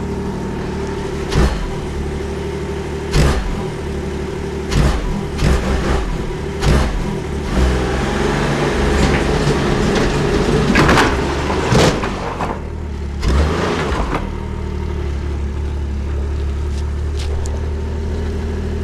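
Ski-Doo snowmobile's liquid-cooled three-cylinder engine running at a warm-up idle, with repeated short bursts of throttle over the first two-thirds, the loudest cluster about two-thirds of the way in, then settling back to a steady idle.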